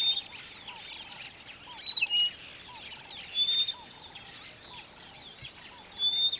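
Rosy-patched bush-shrike singing in courtship display: four loud, clear whistled phrases about every one and a half to two seconds, some a high note dropping to a lower one. Dense steady chirping runs underneath.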